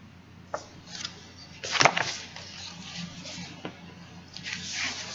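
Paper rustling and soft knocks from a picture book being handled and its page turned: a couple of small clicks, a louder rustling swish about two seconds in, and more rustling near the end.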